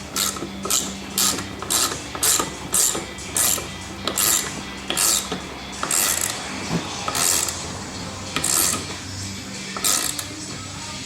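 Hand ratchet wrench being worked in repeated strokes, each stroke a short burst of pawl clicking. They come about two a second at first and space out toward the end, as if the fastener is tightening.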